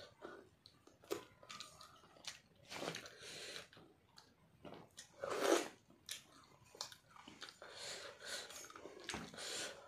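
A man chewing a mouthful of chicken and rice, in irregular wet bursts, the loudest about five and a half seconds in.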